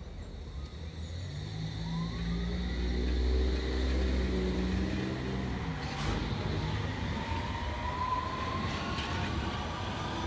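London Underground electric train pulling out of a station platform, its motor whine rising in pitch as it accelerates away, over a low rumble. There are a couple of sharp clicks partway through.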